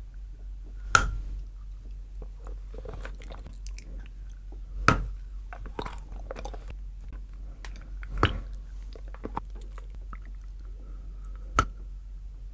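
Bites snapping off pieces of a hard chocolate axe: four sharp cracks a few seconds apart, each followed by close-up chewing.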